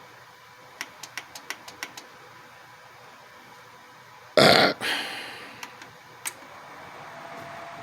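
A quick run of sharp clicks from the heater's control buttons being pressed, then a single loud thump about four and a half seconds in that fades out over a second or so. Near the end a steady hum and hiss set in.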